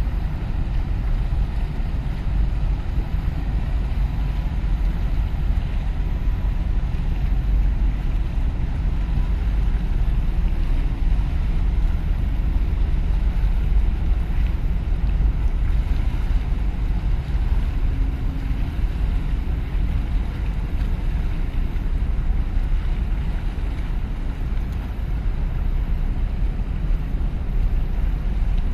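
Steady low rumble of wind buffeting the microphone and water washing around the breakwater's concrete blocks, with a faint low drone from a large container ship passing close by.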